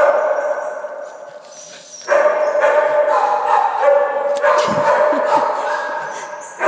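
A dog whining in long, drawn-out cries: one running into the first second or so, and a second starting about two seconds in and lasting some four seconds, with scattered knocks and rustles.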